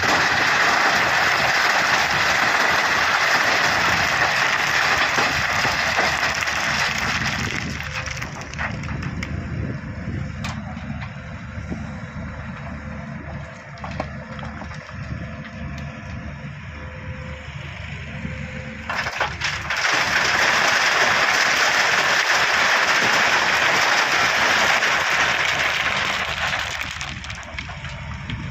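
Doosan DX140W wheeled excavator's diesel engine running under load as its bucket works crushed stone. Twice there is a long, loud spell of gravel rattling and pouring through the bucket, lasting about seven seconds each time, with the engine and scattered clicks of stone between the two.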